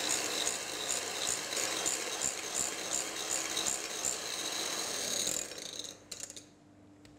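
Electric hand mixer running at speed, its twin wire beaters whipping cream cheese with caramel in a glass bowl, with a quick, regular ticking. It switches off about five and a half seconds in, followed by a few light clicks.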